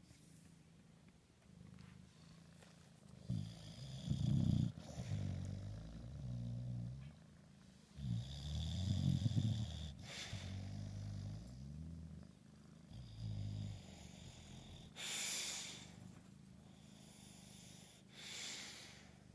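A short-nosed bully-breed dog snoring in deep sleep: three rounds of low, pulsing snores, then two airy breaths near the end.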